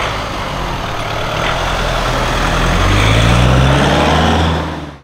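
A motor vehicle's engine pulling away close by, rising in pitch and getting louder over the last few seconds, then cut off suddenly near the end.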